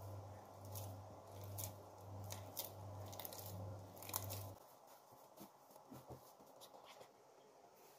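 Soft, sticky bread dough being kneaded by hand as a block of butter is worked into it: faint wet squishing and tearing crackles. A low pulsing hum runs behind it and cuts off sharply about halfway through, leaving only a few faint ticks.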